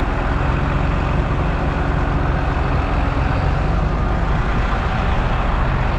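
Heavy truck engine running steadily, low-pitched and even.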